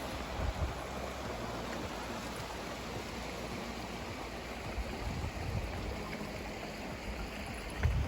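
Rushing water from a waterfall and its stream: a steady, even hiss.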